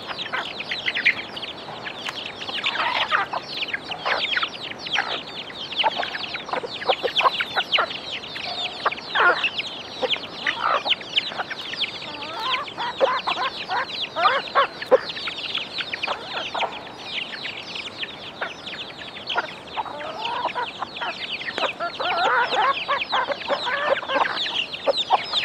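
A flock of chickens clucking, with many chicks peeping nonstop in a dense stream of short, falling, high-pitched calls.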